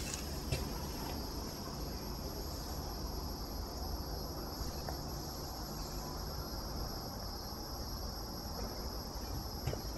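Steady, high-pitched insect chorus of crickets, unbroken throughout. A couple of faint knocks come about half a second in and again near the end.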